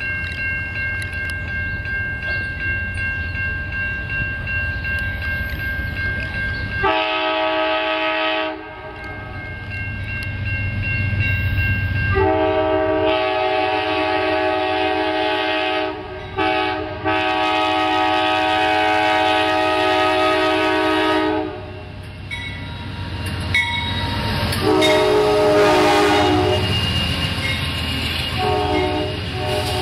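A train's multi-note air horn sounds a series of held blasts, most lasting several seconds, with short gaps between them. Under the horn there is a low, steady rumble from the train, which is all that is heard for the first seven seconds or so.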